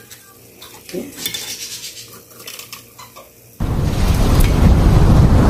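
Metal tongs clinking and scraping against the air fryer basket and a ceramic plate in scattered light clicks as fried tilapia is moved onto the plate. About two-thirds of the way through, a sudden loud rushing noise cuts in and takes over.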